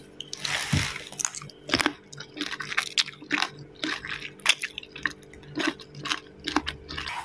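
Someone chewing a crisp pickled green chili, with short irregular crunches about twice a second; the crunch shows the three-day pickle is still crunchy.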